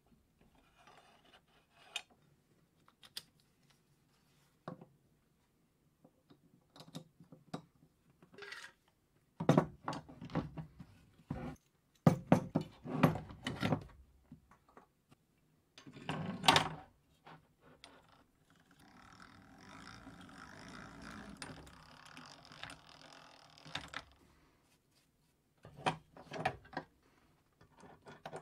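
Workshop handling sounds: scattered clicks and knocks of metal and wood as a wooden workpiece is clamped with bar clamps and a steel machine vice, with heavier clusters of knocks in the middle and a steady hiss lasting several seconds after them.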